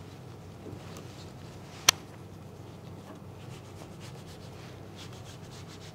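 Chef's knife slicing through a stack of phyllo pastry sheets on a baking tray: faint, dry scraping strokes, with one sharp click about two seconds in.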